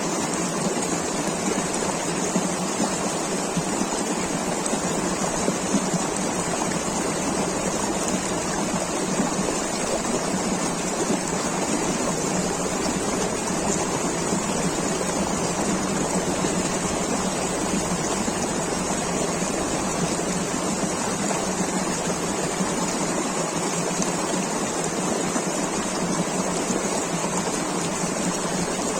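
River water rushing steadily over rocks, an even, unbroken splashing flow.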